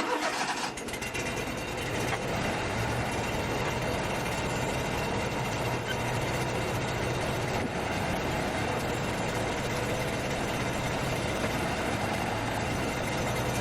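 An engine running steadily at a constant speed. It starts suddenly right at the beginning and holds level throughout.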